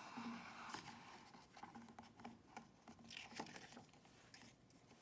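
Near silence: faint scattered rustles and small clicks.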